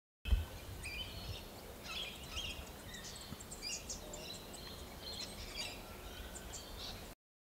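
Many small birds chirping and calling, short high notes and trills overlapping, over a low rumble. The sound starts with a low bump and cuts off abruptly.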